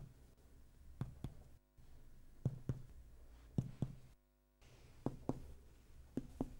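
Indirect finger percussion of an abdomen: a finger striking a finger laid flat on the belly, giving soft taps, mostly in quick pairs, about five pairs in all. The note is mainly tympanic, the hollow sound of gas in the stomach and bowel.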